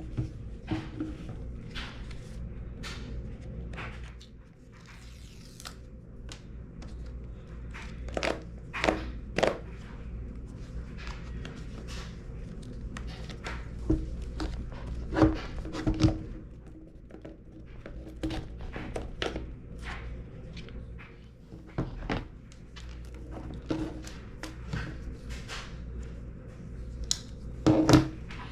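Scattered taps, clicks and light knocks of a phone box and its packaging being handled, a few louder than the rest, over a steady low hum.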